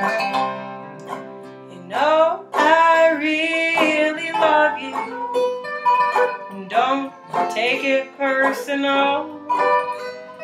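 Bluegrass trio of banjo, dobro and acoustic guitar playing an instrumental break. A chord rings and fades for the first two seconds, then the band picks up again with sliding, bending dobro notes over the banjo and guitar.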